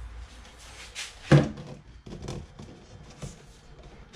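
Plastic handling knocks of a large cooler and a plexiglass panel being fitted into it: a few light taps and clunks, with one louder thud about a second in.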